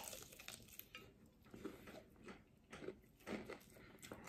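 Faint chewing of crispy Popeyes spicy fried chicken dipped in sauce, with a few soft crunches and clicks.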